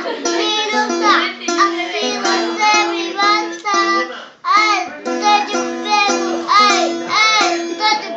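A young child singing a pop tune over a steady rhythmic accompaniment of repeated plucked-sounding notes. The singing breaks briefly about four and a half seconds in.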